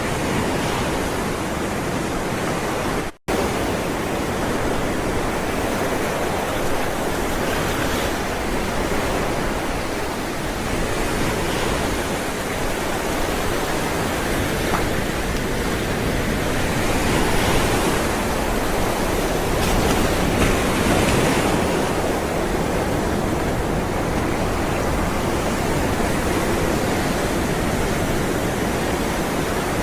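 Ocean surf: rolling waves giving a continuous wash of noise, swelling twice near the middle as larger waves break. The sound drops out for an instant about three seconds in.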